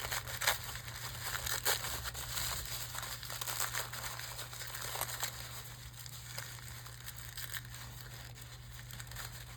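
Wrapping crinkling and rustling as it is handled and pulled off a small jewelry pin: irregular crackles, busiest in the first half and thinning out later. A steady low hum runs underneath.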